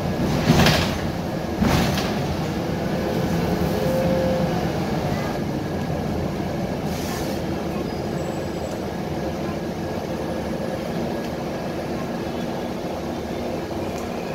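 Cabin noise inside a Scania K320 articulated bus on the move: a steady rumble of engine and road. Two loud knocks come in the first two seconds, and a brief hiss about seven seconds in.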